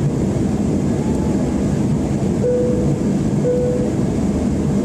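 Steady airliner cabin noise in flight: the low, even rumble and rush of the jet engines and airflow. Midway there are two short steady tones about a second apart.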